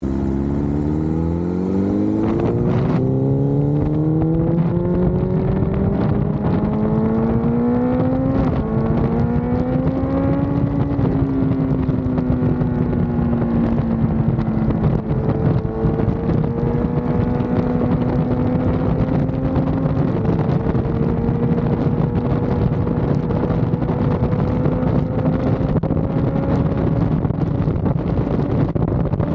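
BMW S1000RR's inline-four engine accelerating hard: its pitch climbs and then steps down at each upshift over the first dozen seconds. It then runs at a steady, slowly rising pitch at highway speed, with wind rushing over the microphone.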